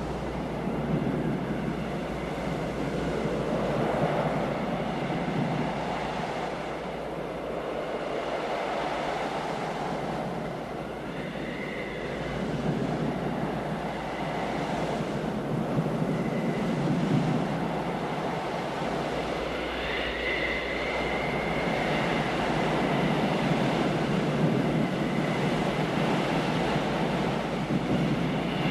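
Film soundtrack: a dense, rumbling roar that swells and fades every few seconds. A high whistling tone slides in about twelve seconds in, again around twenty seconds in, and near the end.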